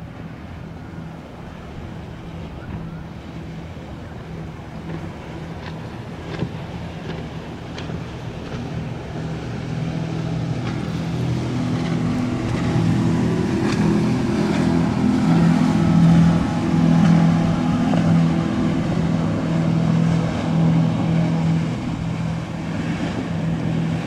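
Engines of a large boat passing through the inlet: a steady low hum that grows louder as the boat approaches, is loudest about two-thirds of the way through, then eases slightly.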